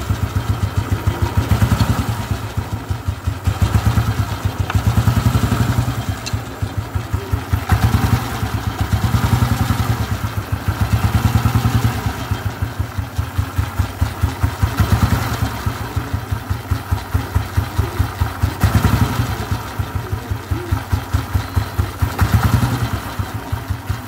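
Royal Enfield Bullet 350cc cast-iron single-cylinder engine running with an even, pulsing beat, its loudness swelling and easing every couple of seconds.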